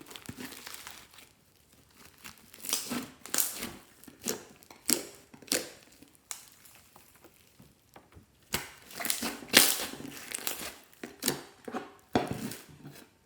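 Slime full of foam beads being mixed and squished: irregular crunching and crackling of the beads, with soft squishes of the glue, in bursts with short pauses between.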